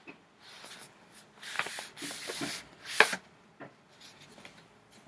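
Rustling and rubbing of a paperback book being handled and moved up close to the microphone, with a sharp knock about three seconds in.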